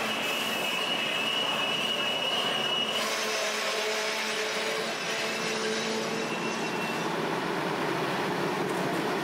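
Metra commuter train moving through the station with a high, steady wheel squeal that cuts off about three seconds in, over a constant hiss of heavy rain.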